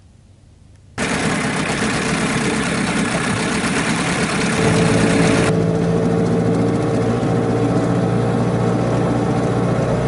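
A boat's outboard motor running under way. It comes in abruptly about a second in, with a rushing noise over it; about halfway through the rushing falls away and a steady engine hum is left.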